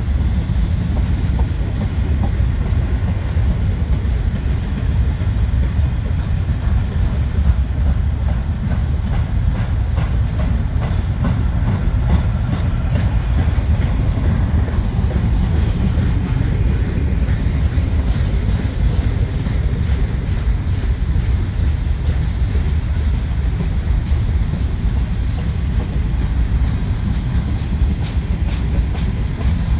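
CN freight train rolling past at track speed: a steady loud rumble of wheels on rail, with a regular clickety-clack of wheels over rail joints.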